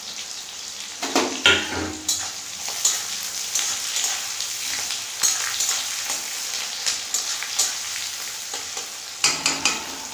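Sliced onions sizzling in hot oil in a kadai, stirred with a flat metal spatula that scrapes and knocks against the pan. There is a cluster of knocks about a second in and another near the end.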